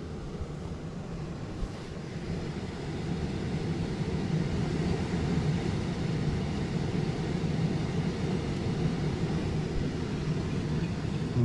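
Steady low hum of the package unit's indoor blower running, growing a little louder a few seconds in, while the condenser stays off.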